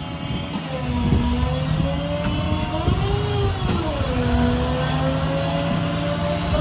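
Hydraulic outriggers of a service-truck crane being lowered: the truck's 6.0 Power Stroke diesel runs while the hydraulic system whines, its pitch rising and falling as the load changes.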